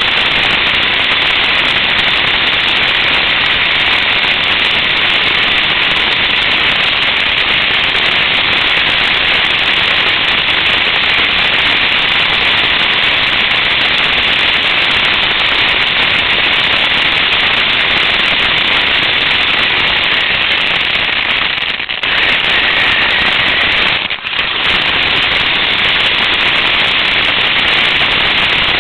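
Radio-controlled car's motor, gears and tyres on pavement, heard up close through the camera riding on the car: a loud, steady noise that eases off briefly twice near the end.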